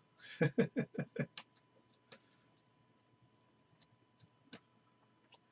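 Trading cards being handled and flipped through by hand: a quick run of about five soft snaps of card edges in the first second or so, then a few scattered light clicks.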